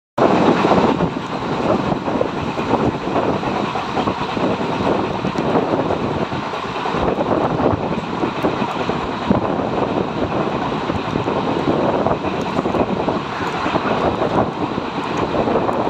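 Passenger coach of an Indian Railways express train running at speed, heard from its open door: a steady rumble of steel wheels on the rails.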